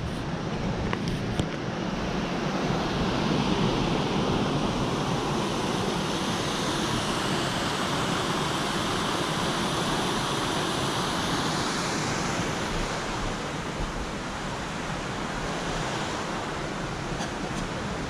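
Steady rush of a small waterfall and rocky creek, mixed with wind on the microphone. The higher hiss swells through the middle and eases off about two-thirds of the way through.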